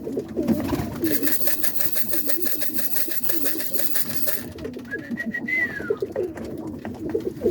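Roller pigeons cooing repeatedly in the loft, with a stretch of rapid rustling noise from about one to four seconds in and a short high whistle rising and falling around five seconds in.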